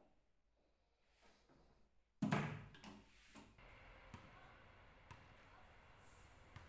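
Wooden suitcase thudding as it is handled: one heavy thump about two seconds in, then a couple of lighter knocks, followed by a steady low hum.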